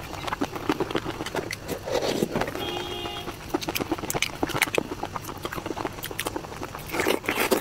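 Wet, sticky clicking and crackling from gloved fingers peeling a sauce-covered raw shrimp, with a brief tone about three seconds in.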